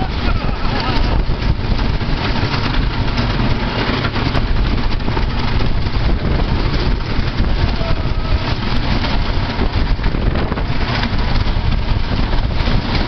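Wooden roller coaster train running at speed along its wooden track, a constant loud rumble with rapid clattering knocks, heard from a seat on board with wind rushing over the microphone.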